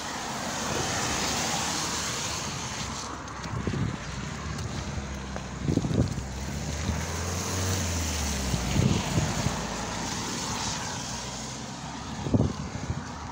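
BMX bike rolling over wet pavement: a steady hiss of tyres on the wet surface with wind rushing over the microphone, and a few dull knocks as the bike jolts over bumps.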